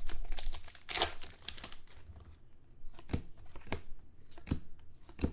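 Plastic trading-card pack wrappers crinkling and tearing, then a few separate soft taps as the cards are handled.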